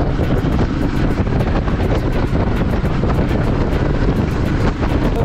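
Wind rushing over the camera microphone on a moving motorcycle: a loud, steady rumble, with the motorcycle running underneath.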